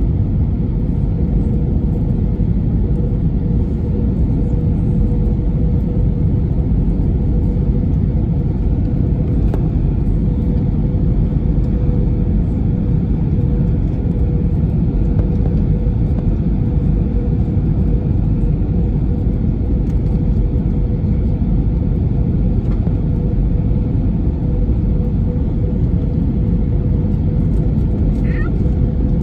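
Airliner cabin noise on final approach in an Airbus A320-family jet, with flaps extended: a steady, deep rumble of engines and airflow with a steady mid-pitched hum over it. A brief faint squeak comes near the end.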